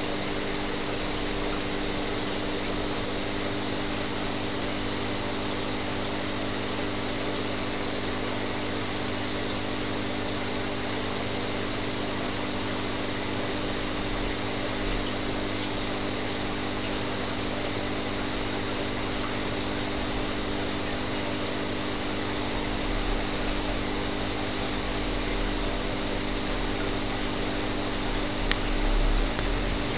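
Steady hum of an aquarium pump running, with a hiss of moving water and a few low bumps near the end.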